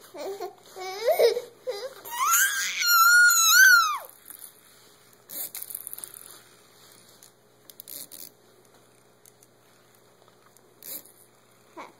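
A toddler's voice: short whiny vocal sounds, then a loud, high-pitched wavering squeal lasting about two seconds. It is followed by a few faint clicks and rustles.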